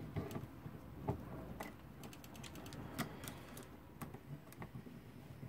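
Faint, irregular clicks and ticks of a Haller alarm clock's brass movement being worked with a screwdriver as its mainspring is let down by hand.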